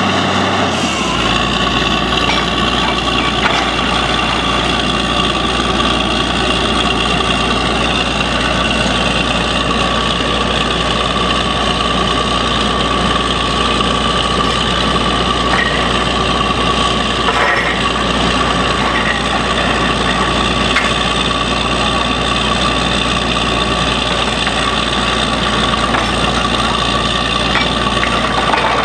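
Truck-mounted borewell drilling rig running steadily, its engine and drilling machinery giving a constant hiss and whine. A deeper rumble comes in about a second in and holds.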